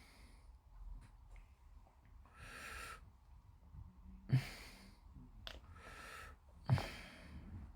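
A person breathing out through the nose close to the microphone, four soft breaths a second or so apart, with two short soft knocks about four and a half and seven seconds in.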